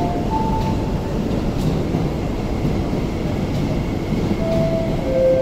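MTR East Rail Line electric train running at the platform: a steady rumble and hum. A few clear steady tones sound briefly at the start and again near the end.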